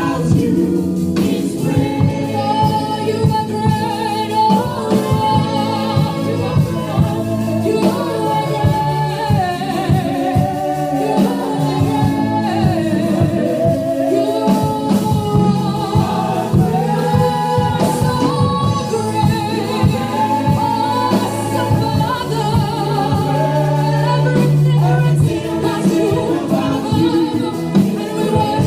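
Live gospel praise music: a choir singing with band accompaniment, bass and a steady drum beat.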